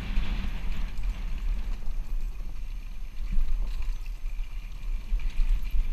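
Dirt bike ridden down a bumpy dirt trail, heard from a helmet-mounted camera: uneven low wind rumble on the microphone over the bike's engine and rattle.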